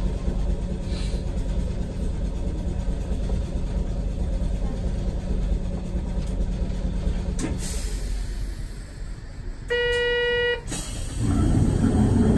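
Streetcar standing still with a steady low hum. About ten seconds in a horn sounds once, a flat tone lasting about a second, and near the end a louder low rumble sets in.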